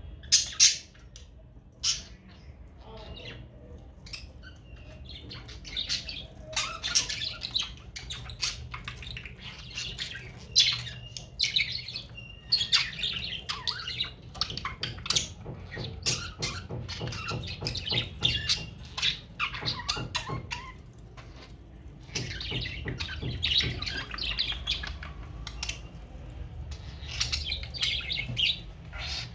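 Budgerigars chattering with squawks and chirps, amid many sharp clicks, over a steady low hum.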